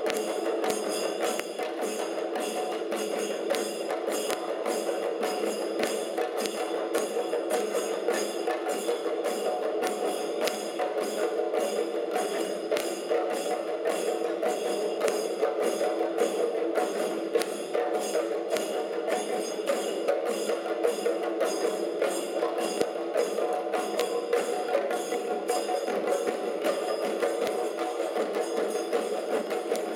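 A chenda melam: several Kerala chenda drums beaten with sticks together in a fast, continuous, dense rhythm of strokes.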